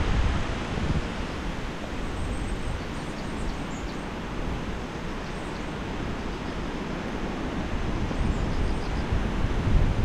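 Gusty typhoon wind buffeting the microphone over a steady rushing hiss. The gusts ease in the middle and build again near the end.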